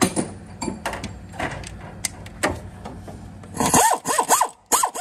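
Clicks and clatter of hand tools and a socket, then, a little over a second before the end, several short bursts of a pneumatic air ratchet, each a hiss of air with a whine that rises and falls, as the trigger is pumped in short taps to snug a 12 mm nut on the starter's positive cable.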